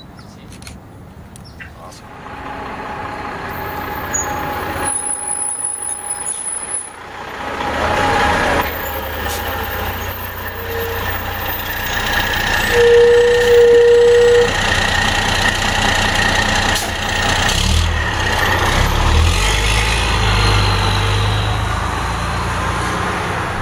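Fire engine pulling away and driving off, its engine rumble building as it goes. It gives a short horn toot about halfway through and a longer toot a couple of seconds later.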